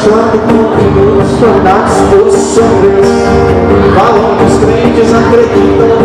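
Live gospel worship band music, with a strummed twelve-string acoustic guitar and a wavering melodic line over it.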